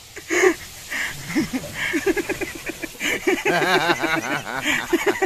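People's voices: scattered vocal sounds, then from about three and a half seconds in a run of quick, repeated pitched 'ha' pulses of laughter.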